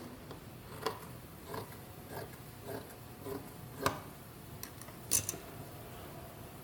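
A series of light clicks and taps from hands working with fabric and small sewing tools: six at a fairly even pace of just under two a second, then a couple more close together near the end.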